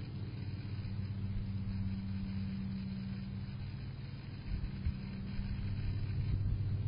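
A steady low machine hum, with a few low thumps about four and a half to five seconds in.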